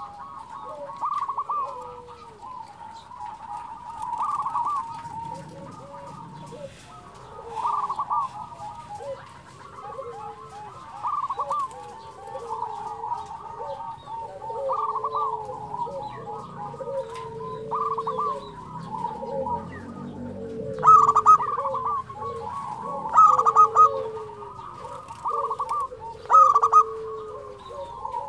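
Local zebra dove (perkutut) cooing: short rolling coo phrases repeated every two to three seconds, louder in the last third.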